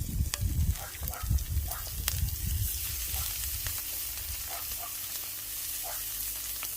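Pigeon meat sizzling and frying in a cast iron pan, a steady high hiss with faint crackles, with low rumbling during the first three seconds or so.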